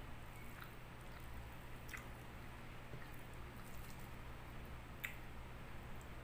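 Fingers squishing and gathering steamed rice on a plate for eating by hand: faint soft squelches with a few small clicks, the sharpest about five seconds in, over a steady low hum.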